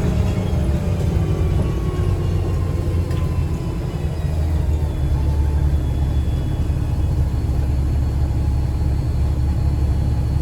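Steady low rumble of a 2009 Gillig BRT 40-foot transit bus heard from on board, with its Voith automatic transmission. A faint whine falls in pitch during the first few seconds.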